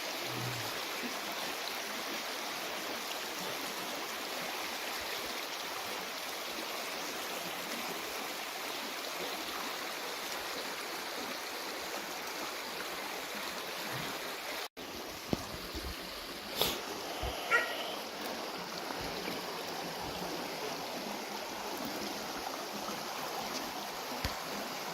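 Creek water running steadily. About two-thirds of the way through the sound drops out for an instant, then a few short sharp sounds stand out over the water.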